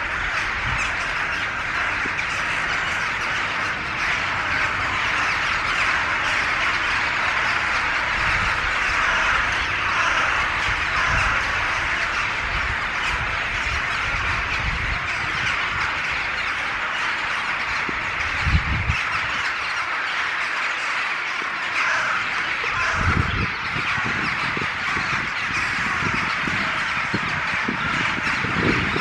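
A large flock of rooks cawing all at once, a dense unbroken chorus of harsh calls, with a few short low thumps.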